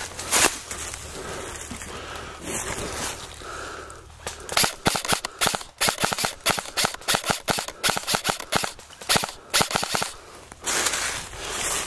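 Airsoft rifle firing a string of rapid single shots, about three to four a second, for roughly six seconds, each a sharp crack.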